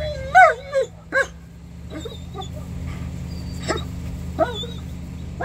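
A German Shepherd-type dog whining and giving short, high-pitched yips and barks, a long rising-and-falling whine in the first second, then about half a dozen sharp yips. It is an excited dog worked up by the flirt pole's prey lure while held at heel.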